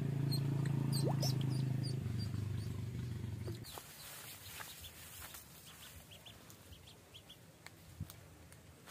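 A duckling peeping in short high chirps as it flaps and scrambles on the end of the fishing line. For the first three and a half seconds a low steady hum sits under it, then stops.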